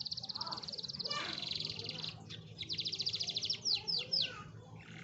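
Canary singing: long, fast trills and rolls, then a few quick downward-sliding whistle notes about four seconds in. This is the kind of lure song played to coax a reluctant canary into singing.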